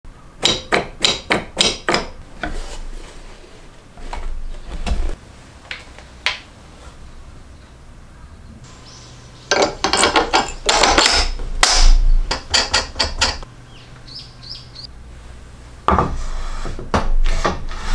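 Sharp clicks and knocks of steel brackets, bolts, plates and tools being handled and fitted together, with a quick run of about eight clicks in the first two seconds and a dense cluster in the middle.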